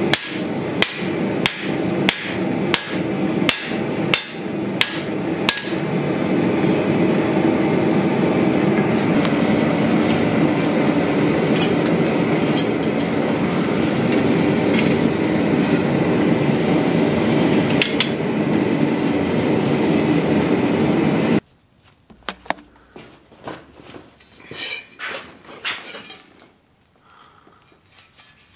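Hand hammer striking a red-hot bowie-knife blade on a steel anvil, about two ringing blows a second for some six seconds. A loud steady rushing noise then takes over for about fifteen seconds and cuts off suddenly, leaving faint knocks and handling sounds.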